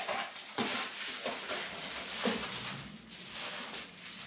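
A cardboard box being opened by hand: flaps pulled back and the packing inside rustling, with a few sharper crinkles and knocks.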